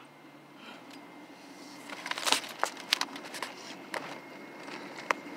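Clumps of sand and snow thrown up by another off-road truck hitting the windshield and body of a vehicle, heard from inside the cab: a handful of sharp, separate hits starting about two seconds in, over a low steady hum.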